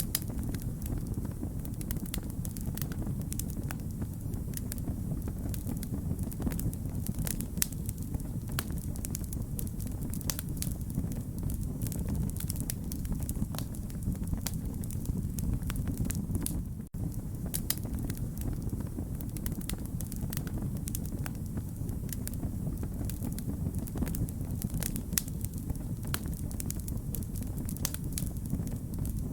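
Wood fire crackling: a steady low rumble of burning with frequent sharp, irregular pops and snaps. The sound drops out for an instant just past halfway.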